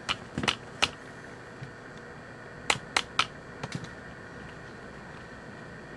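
Light taps on a Zenith Royal 80 pocket transistor radio: three in the first second, then four or five more around three seconds in, over a faint steady hiss. The radio is being knocked to provoke its unstable oscillator, a tap test for an intermittent fault.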